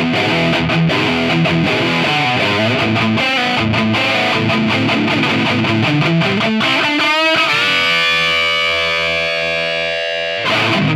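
Electric guitar played through distortion: a fast riff with a pitch slide about seven seconds in, then a held chord ringing out. A last short hit comes near the end before the sound dies away.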